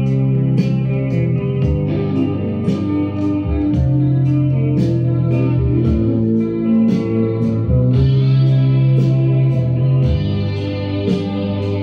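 Music playing from a vinyl record on an ION turntable, amplified by a Marantz integrated amplifier and heard through loudspeakers.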